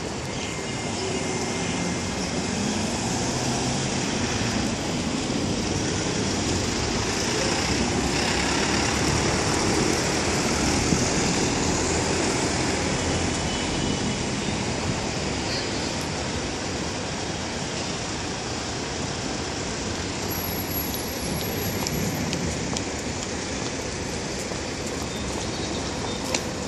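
Road traffic ambience: a steady wash of vehicle engine and tyre noise that swells gently about a third of the way in, with a couple of faint clicks.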